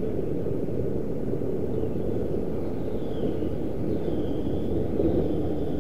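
Steady low rumble of background noise, with a few faint, high, gliding bird calls in the middle.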